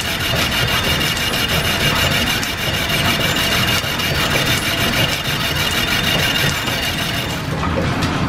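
A metal lathe turning down the ring lands of a hit-and-miss engine piston: a steady scraping cut with a faint high whine and a fast, even ticking from the running machinery. The high hiss drops away about seven and a half seconds in.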